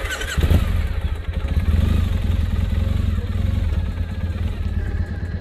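Triumph T100 Bonneville's parallel-twin engine starting up with a thud about half a second in, then running with a loud, uneven low beat.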